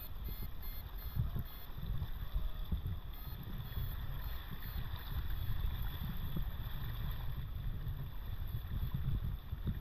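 Rushing river water around a wader's legs, with wind rumbling on the microphone.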